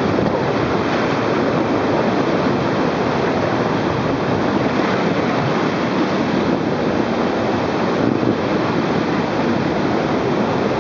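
Whitewater rapids: a steady, loud roar of river water churning over and around boulders, heard up close from a raft.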